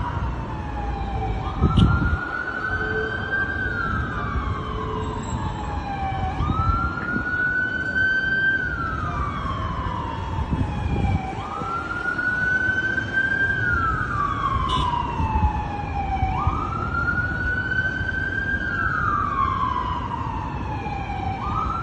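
Emergency-vehicle siren wailing: each cycle rises quickly, holds briefly, then glides slowly back down, repeating about every five seconds over a steady low rumble.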